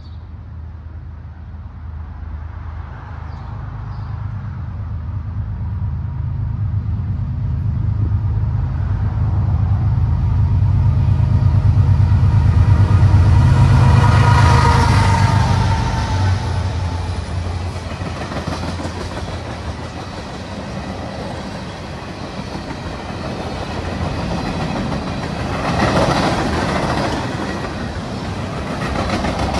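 BNSF GE ES44C4 diesel-electric locomotive approaching and passing, its low engine rumble growing to its loudest about halfway through. Then the freight cars roll by, tank cars and covered hoppers, their wheels clacking steadily on the rails.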